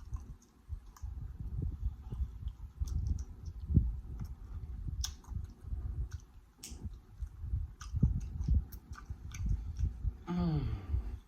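Close-miked chewing of seafood, wet mouth sounds with scattered sharp clicks and smacks. Near the end comes a short hummed "mm" of approval that falls in pitch.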